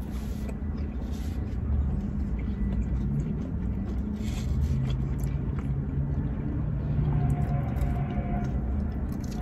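Low steady rumble of a car and traffic, with an engine hum that swells about halfway through and fades near the end, and a few faint clicks of chewing.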